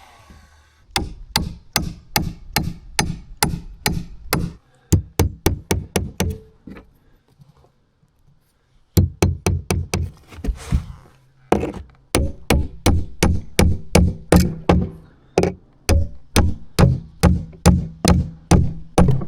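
Hammer driving nails into lumber: runs of steady blows about three a second, with short pauses between nails and a longer break near the middle.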